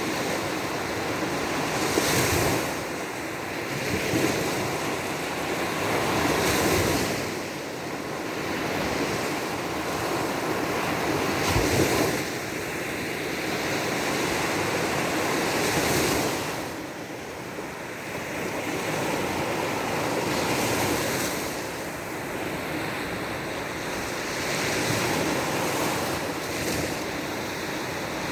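Baltic Sea waves breaking and washing onto the beach, swelling and easing every few seconds, with wind blowing across the microphone.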